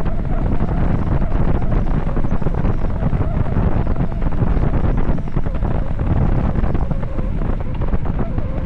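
Wind buffeting the microphone of a bicycle descending a mountain road at high speed: a loud, steady rushing roar.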